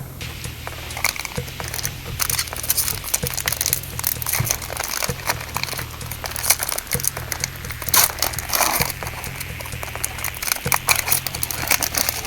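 Crinkling and rustling of a Magic: The Gathering booster pack wrapper and cards being handled, with many sharp crackles, over background music with a steady low beat.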